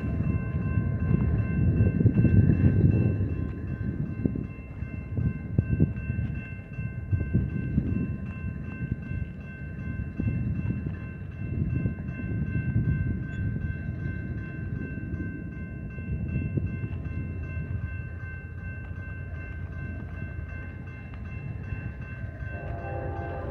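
A low, uneven rumble that swells and fades, loudest in the first few seconds, over a faint steady high whine. Near the end a distant freight train's horn starts sounding as the train approaches the crossing.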